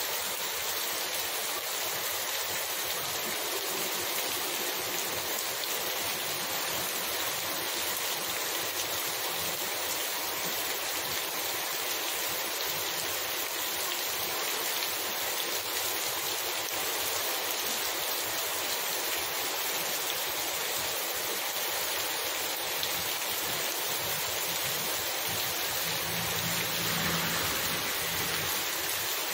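Heavy rain pouring onto a wet, puddled street, a dense steady hiss. Near the end a small pickup truck drives past, its low engine hum rising under the rain.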